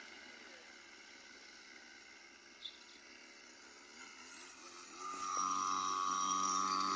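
Small engine of a mini cross pocket bike, faint and distant at first, then growing louder from about five seconds in as the bike comes back, with a steady high-pitched buzzing note.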